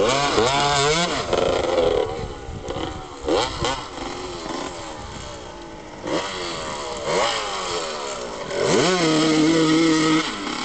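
Honda motocross bike's engine revving hard, its pitch climbing and dropping with each twist of the throttle several times, then held high near the end as the bike ploughs through water.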